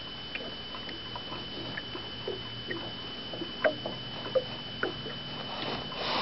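Faint, scattered small clicks and taps of a walleye being handled and measured in a boat, over a steady faint high-pitched whine.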